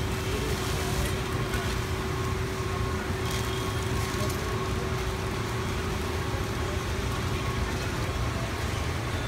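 Steady machinery hum and noise on a factory floor, with a constant tone running through it and a few faint clicks.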